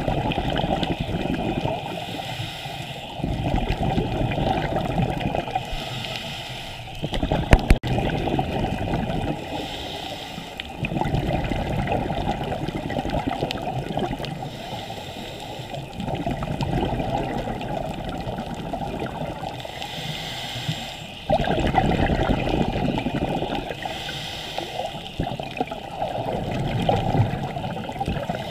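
Scuba regulator exhaust bubbles heard underwater, coming in rushing bursts of a few seconds each with quieter gaps between, the rhythm of a diver's breathing. A single sharp knock about seven and a half seconds in.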